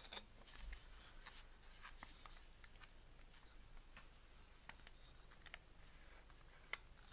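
Near silence with faint room hiss and a few scattered light clicks of an unpacked item being handled; the sharpest click comes near the end.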